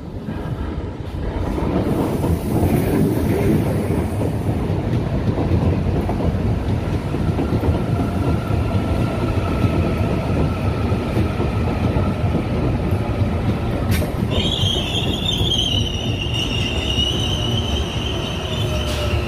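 CPTM electric commuter train rolling past close by, a steady heavy rumble of wheels on rail that swells over the first couple of seconds. About two-thirds of the way in a high-pitched metal squeal from its running gear sets in and holds.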